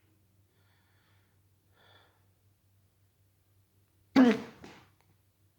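A person hiccups once about four seconds in: a sudden, sharp voiced 'hic' with a smaller catch right after it. Faint breathing comes before it.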